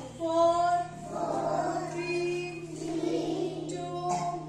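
A group of young children singing together in unison, with drawn-out held notes, over a steady low hum.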